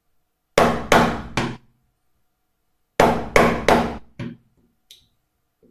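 Wood chisel being driven into timber with a mallet: three sharp knocks, a pause, then three more and a lighter fourth. The chisel is chopping out a shallow recess a millimetre or two at a time.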